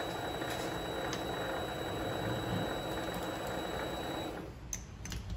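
Vevor MX 400 mini lathe running steadily with a thin high whine, then switched off about four seconds in so the running noise stops, followed by a few light clicks.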